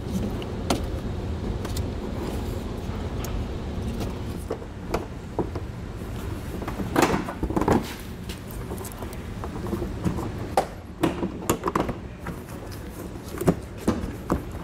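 Scattered plastic clicks, knocks and rubbing as a Jeep Cherokee's front bumper cover is pushed back into place and its tabs seat, over a steady low hum, with small clusters of knocks about seven seconds in and again near eleven seconds.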